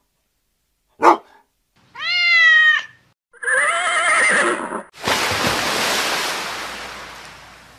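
Intro sound effects of animal calls, one after another: a single short bark, a meow of about a second, and a wavering horse whinny. Then a long rush of noise that slowly fades out.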